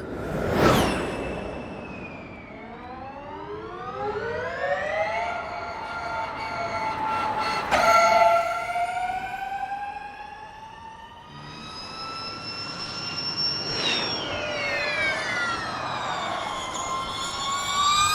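Electric Formula E race car's high-pitched motor and gearbox whine, climbing in pitch as it accelerates and dropping as it slows. A car rushes past close by twice, right at the start and about eight seconds in.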